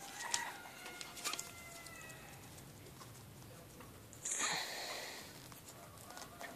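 Young Maltese puppies whimpering: several thin, high squeaks in the first two seconds or so, then a brief rustling noise about four seconds in.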